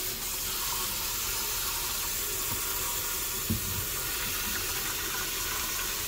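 Kitchen faucet running a steady stream of water into the clear plastic tank of a Honeywell HUL430 cool mist humidifier, a continuous splashing hiss as the one-gallon tank fills. A light knock comes about three and a half seconds in.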